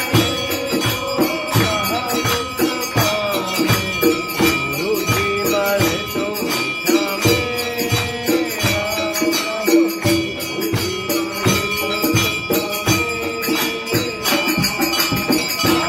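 Worshippers singing a Hindu devotional song together in a temple, with steady rhythmic hand-clapping and a bright, continuous ringing behind the voices.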